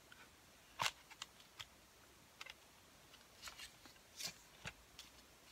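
Plastic CD jewel case being opened and its paper inserts handled: a few quiet clicks and rustles, the sharpest about a second in.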